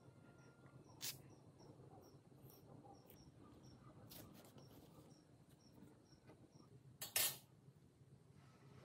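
A quiet workshop with a faint insect, like a cricket, chirping about three times a second, fading after about four seconds. A few brief scrapes and knocks come from a rusty bench vise being handled on a steel workbench: a small one about a second in and a louder quick double about seven seconds in.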